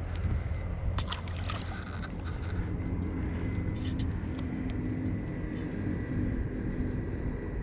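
Steady low rumble throughout, with a few light clicks and a small splash about a second in as a perch is dropped back into the river.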